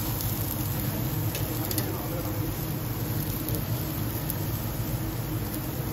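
Steady low rumble of a running commercial gas grill and kitchen ventilation, with a couple of faint clicks a little over a second in.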